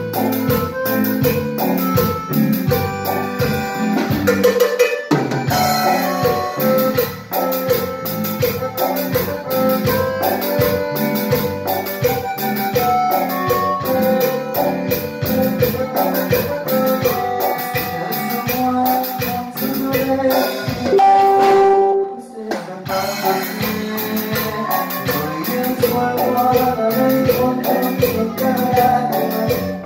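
A live band rehearsing a song: drum kit keeping a steady beat under electronic keyboard and electric guitar and bass. About 21 seconds in, the beat and bass drop out for a moment in a short break, then the full band comes back in.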